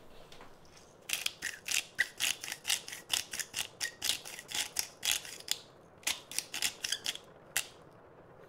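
Pepper mill grinding black peppercorns over a bowl: a fast run of ratcheting clicks, about four a second, with a short pause before a last few turns.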